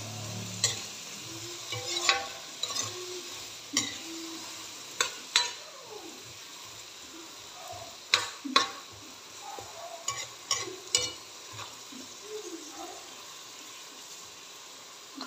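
Metal ladle scraping and knocking against a wok as diced potatoes and carrots are stirred, over a steady sizzle of vegetables browning in hot oil. The knocks come irregularly, often in quick pairs.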